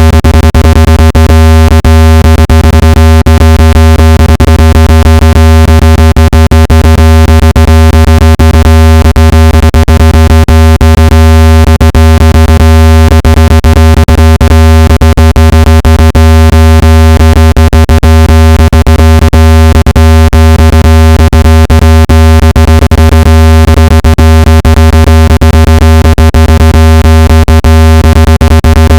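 Loud, steady, low-pitched electronic tone with a buzzy stack of overtones, crossed by frequent irregular clicks. It is a speaker-cleaning tone, meant to vibrate water and dust out of a phone speaker.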